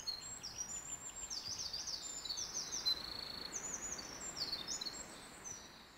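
Wild birds singing: many quick, high chirping notes in repeated runs, over faint outdoor ambience, growing quieter near the end.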